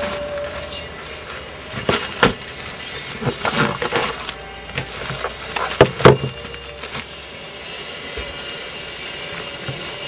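Plastic cling film crinkling and crackling as it is pulled and pressed tightly around a sandwich. The crackling comes in a few spells over the first six seconds, loudest around six seconds in, then dies down.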